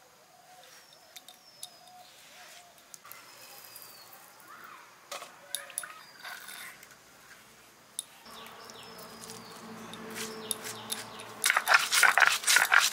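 Stone roller scraping and crushing whole coriander seeds on a flat grinding stone (sil-nora), in quick, loud strokes that start near the end. Before that only faint taps and high chirps.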